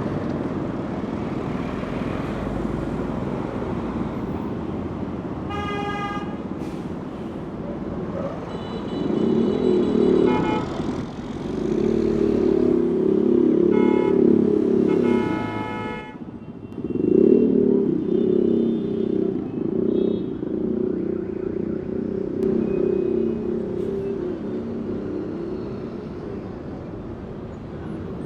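Heavy city traffic: a steady rumble of engines and tyres, with large diesel vehicles such as trucks and buses passing loudly from about nine seconds in. Car horns honk several times: about six seconds in, again near ten seconds, and twice more between fourteen and sixteen seconds.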